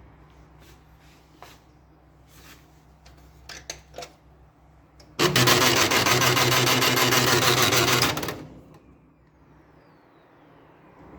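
HP LaserJet P1102 laser printer grinding loudly for about three seconds, starting about five seconds in after a few faint clicks: the sound of a broken drive gear.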